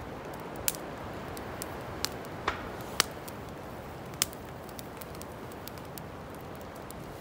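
Steady outdoor background hiss with five sharp clicks scattered through the first four and a half seconds, the loudest about three seconds in.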